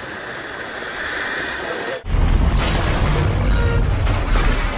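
Loud rumbling noise mixed with music, cutting abruptly about two seconds in to a much louder, deeper rumble.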